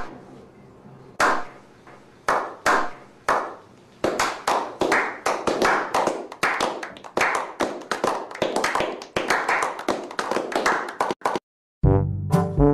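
A slow clap by a small group of men: a handful of single hand claps about a second apart, then from about four seconds in they all join in with fast applause for about seven seconds. Just before the end the clapping stops and brass music starts.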